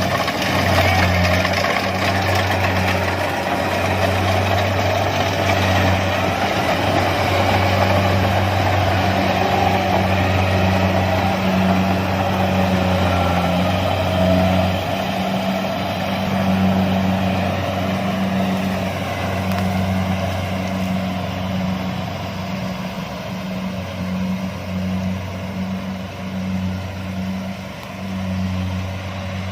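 Kubota DC-70 combine harvester running steadily while harvesting rice: a diesel engine hum under a dense mechanical whir of the cutting and threshing gear, growing somewhat fainter in the second half.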